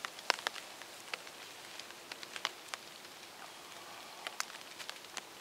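Water drops falling on wet leaf litter: scattered, irregular sharp ticks over a faint steady hiss.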